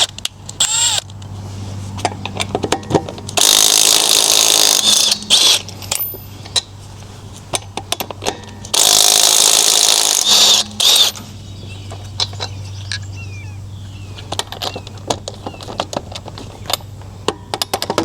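Impact wrench running in two bursts of about two seconds each, a few seconds apart, removing the lug nuts from a Dodge Durango wheel. Short metallic clicks and clinks come between and after the bursts.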